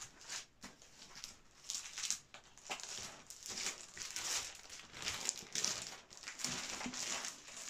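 Large sheets of art-print paper rustling and crinkling as they are lifted off a stack and turned over, in a run of short irregular bursts.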